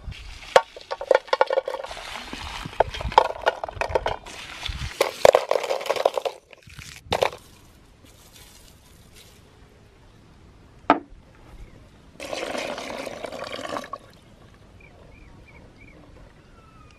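Water splashing and being poured into a container, with sharp knocks and clinks. A steady pour of about two seconds comes near the end.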